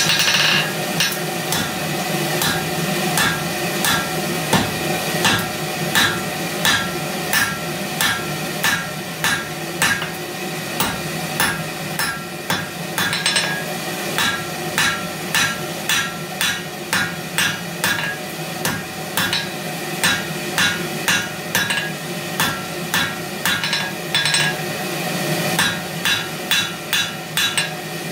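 Hammer blows on a red-hot round steel bar on an anvil, a steady rhythm of about two strikes a second, drawing the end flat for a tong jaw. A steady hum runs underneath.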